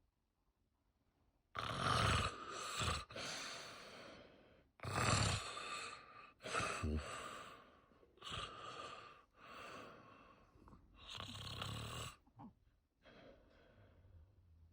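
A sleeping man snoring: loud, rasping snores, each a second or two long, coming about every three seconds. The last one near the end is fainter.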